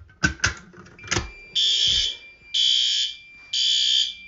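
A few sharp clicks as a Fire-Lite BG-12 pull station is pulled, then a System Sensor SpectrAlert P4RL horn strobe sounding in the temporal-three evacuation pattern: three loud half-second blasts, each about a second apart. A faint steady high tone starts about a second in and runs under the blasts.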